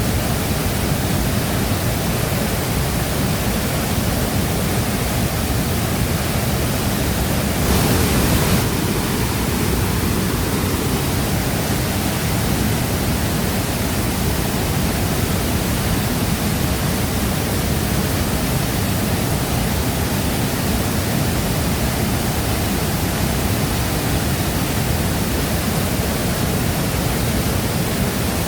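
Shifen Waterfall's falling water: a steady, dense rushing, with a brief louder swell about eight seconds in.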